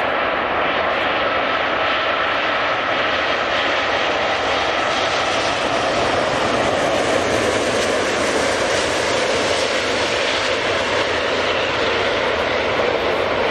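Airbus A380 with four Rolls-Royce Trent 900 turbofans passing low on final approach: a loud, steady jet roar. A thin whine in the first few seconds fades out, and the roar is brightest about halfway through as the jet passes abeam.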